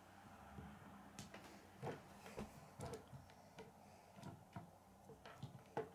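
Faint, irregular clicks and taps of plastic K'nex rods and connectors being handled and snapped together.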